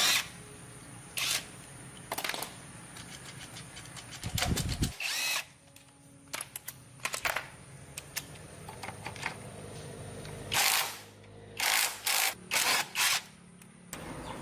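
Handheld power drill run in short bursts, about ten of them, each well under a second, with pauses between.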